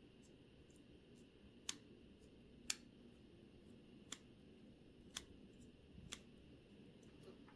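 About five small, sharp clicks spread irregularly over faint room hiss: watchmaker's tools and small watch parts knocking together while a vintage Omega watch is taken apart for cleaning.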